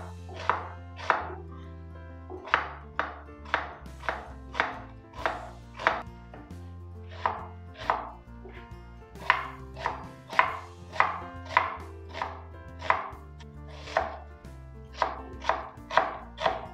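Chef's knife slicing an onion into thin half-rings on a wooden cutting board: a steady series of sharp knocks as the blade hits the board, roughly two a second.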